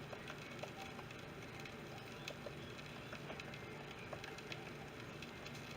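Vegetable oil with chili powder heating in a frying pan, giving faint, scattered small crackles and pops over a low steady background.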